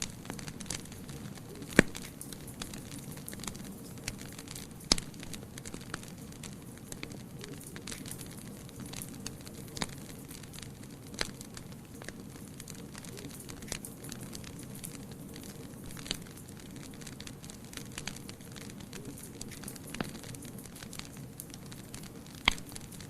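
Wood fire burning in a fireplace: a steady low hiss with irregular crackles and pops, a few sharp snaps standing out, the loudest about two seconds in.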